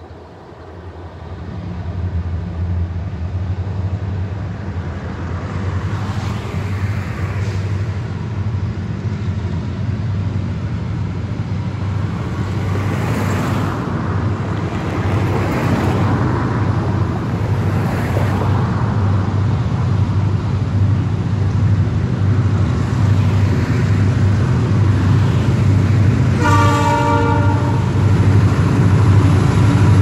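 Canadian Pacific SD60 diesel locomotives approaching under power: a steady low engine rumble that grows slowly louder. Cars whoosh past on the road several times, and near the end the lead locomotive's horn gives one short blast.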